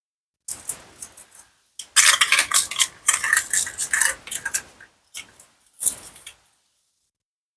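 Plastic and wooden toy food clattering against a toy knife and cutting board: a run of sharp clicks and rattles that is densest in the middle, then a shorter burst of clicks.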